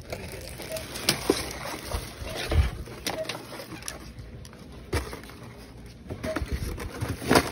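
Handling noise: scattered rustles, taps and knocks of merchandise and the phone being handled, over a steady store background hiss, with a low thump a few seconds in and a sharper knock near the end.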